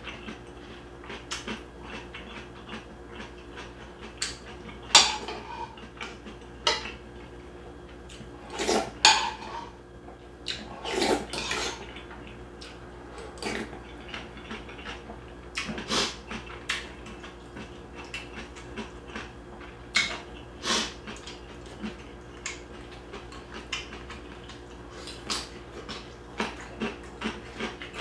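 A metal spoon clinking and scraping against a bowl again and again, with several slurps of hot beef bone soup and chewing of cubed radish kimchi.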